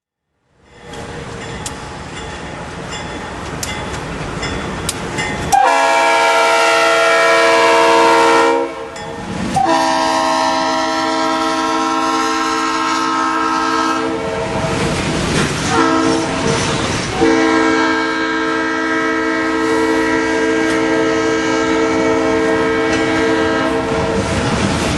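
Leslie RS3L three-chime train horn sounding a chord in several long blasts over the rumble and clickety-clack of a passing train.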